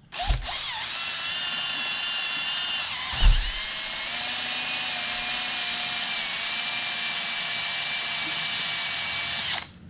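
Electric drill boring an entry hole for a screw into a wooden board, its motor whining steadily for about nine seconds before stopping near the end. About three seconds in there is a low bump and the motor's pitch dips briefly before settling again.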